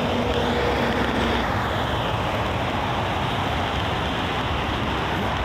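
Steady traffic noise from a multi-lane highway, with trucks, vans and cars passing.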